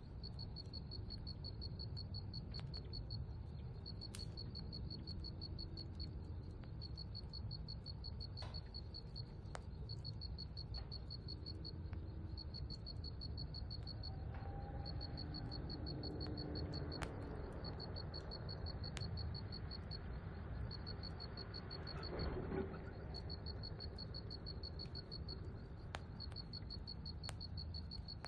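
Crickets chirping in a steady, fast-pulsing high trill that pauses briefly now and then, over a low rumble, with a few faint clicks and a brief soft sound about three-quarters of the way through.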